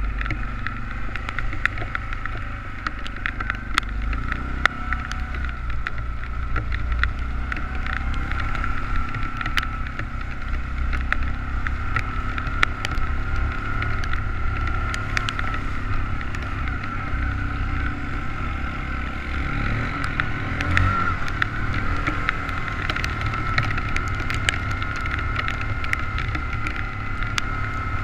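Quad bike (ATV) engine running steadily under way over a muddy track, with a steady high whine above the engine note and scattered sharp ticks throughout.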